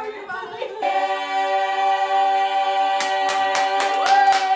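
Voices singing one long held note, joined about three seconds in by quick hand claps, about five a second.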